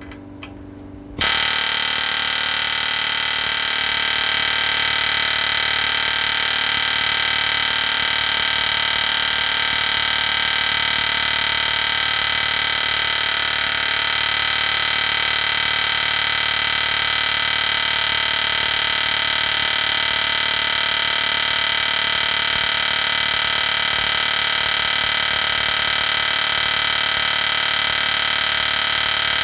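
Pneumatic air hammer driving out a steel frame rivet, starting about a second in and then hammering continuously at a steady rapid rate.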